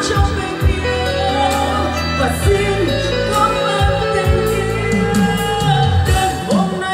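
Live pop song through a PA: a woman singing into a microphone over amplified backing music with a strong bass.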